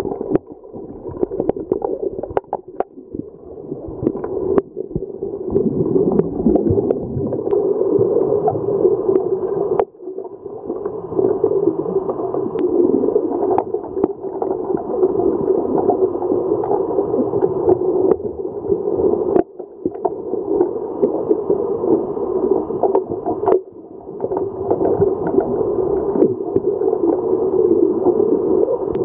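Muffled underwater sound in a swimming pool during underwater hockey: a steady churning, gurgling water noise from swimmers' fins and bubbles, dull and lacking treble as heard by a submerged microphone. Scattered sharp clicks and knocks run through it.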